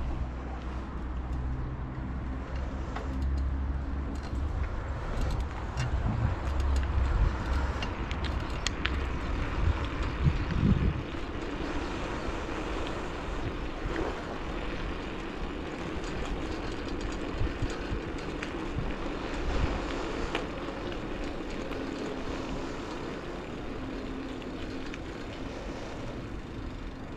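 Ride noise from a bicycle-mounted camera: wind buffeting the microphone and tyres rolling on asphalt. There is a heavy low rumble for about the first ten seconds, then steadier, with a few sharp clicks and rattles.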